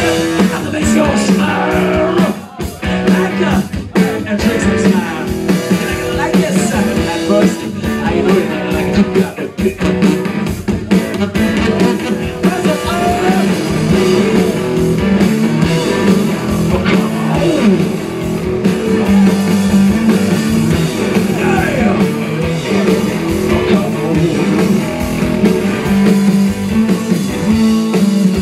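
Live rock band playing loud: electric guitars and a drum kit in a driving garage-blues groove, from a bassless two-guitars-and-drums trio.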